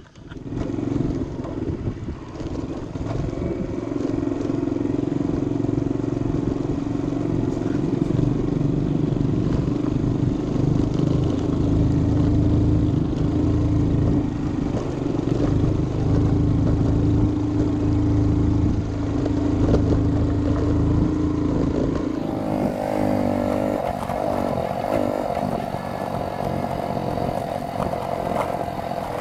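Small Yamaha motorbike engine running steadily while riding a rough dirt track; a little over two-thirds of the way through, the sound changes character.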